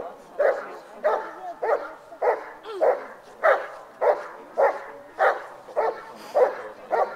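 A dog barking over and over in a steady rhythm, about a dozen barks, a little under two a second.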